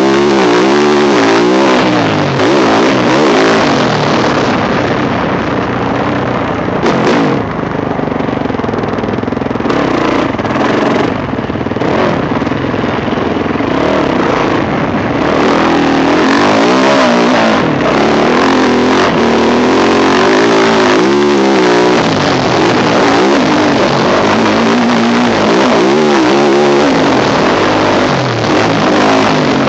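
Yamaha YZ450F four-stroke single-cylinder motocross engine, heard from a helmet camera, revving hard and dropping back over and over as the rider accelerates, shifts and rolls off around the track, with a couple of brief lulls.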